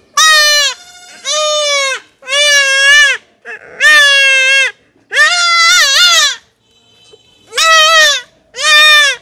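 Young goat kid bleating loudly, about seven high, wavering bleats in a row, while it is held down and castrated.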